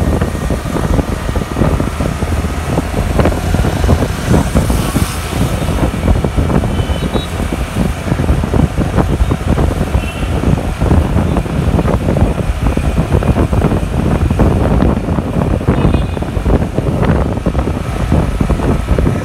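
Road noise from riding in a moving vehicle: a steady engine and tyre rumble with irregular low buffeting, typical of wind on the microphone.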